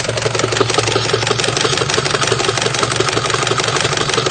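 Honda B16A four-cylinder engine idling with a loud, fast, even clattering tick on top of its running. This is the noise that began after an over-rev in too low a gear, which has been put down to a really loose timing belt, perhaps its tensioner.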